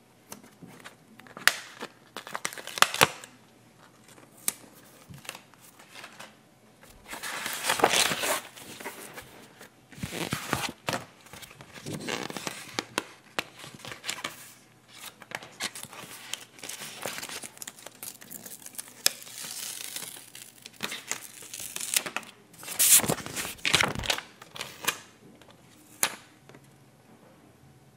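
Paper sticker sheets rustling and crinkling as stickers are peeled off their backing and pressed onto a paper page, in uneven bursts with a few sharp clicks. Two longer, louder peels come about a quarter of the way in and again near the end.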